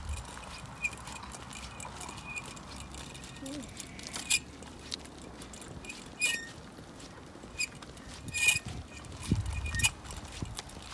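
A small child's bicycle being ridden slowly on asphalt: scattered light clicks and rattles at irregular intervals, a few louder ones with a brief metallic ring.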